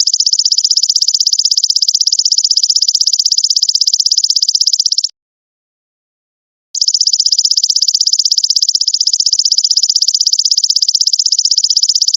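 Belalang emas ('golden locust') insect calling: two long, high-pitched, rapidly pulsing buzzing trills, each about five seconds long, with a short clean gap between them.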